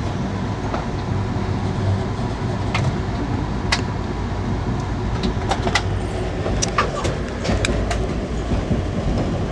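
Interior of an Amtrak Amfleet I passenger coach in motion: a steady low rumble of wheels on rail, with several scattered sharp clicks.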